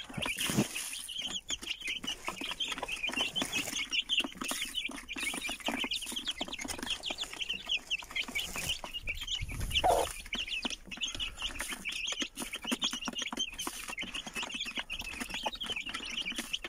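A brood of young chicks peeping without pause, many short high cheeps overlapping, with soft clicks throughout. A hen gives one lower cluck about ten seconds in.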